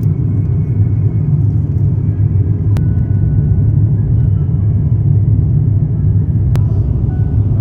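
Steady low rumble of an Airbus A350-900 airliner cabin in flight during descent, with two faint clicks about three and six and a half seconds in.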